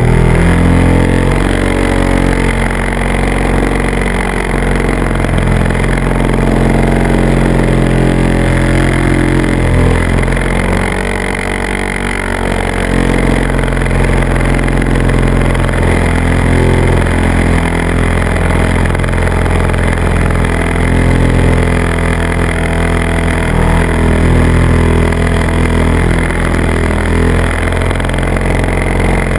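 Model aircraft's motor and propeller running, heard up close on the aircraft; the pitch steps up and down with throttle changes and it eases off briefly about twelve seconds in.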